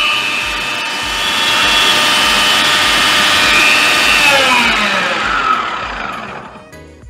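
Prestige Endura 1000W food processor motor running at full speed, its blade chopping onion and tomato with a steady high whine. About four seconds in it is switched off and the whine falls away as the motor spins down.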